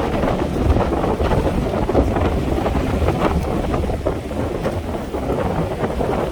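Sea waves washing on a rocky shore in strong wind, with wind buffeting the microphone as a continuous low rumble that surges irregularly.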